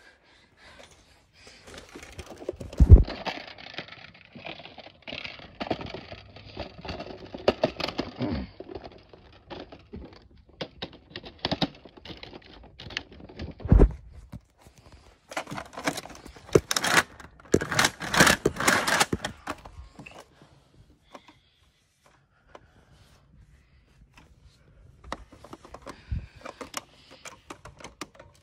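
Close handling noise: rustling, scraping and scattered clicks, with two heavy thumps about three and fourteen seconds in. Loud rustling sweeps come a little past halfway, then it goes nearly quiet for a few seconds.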